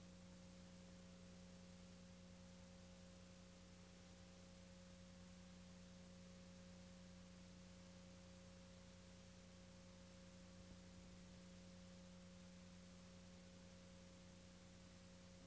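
Near silence: the faint steady hum and hiss of VHS tape playback, with no programme sound.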